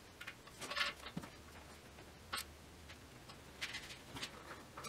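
Faint, scattered metallic clicks of a ratchet, extension and swivel socket being worked onto an exhaust-manifold nut, a few short ticks a second or so apart.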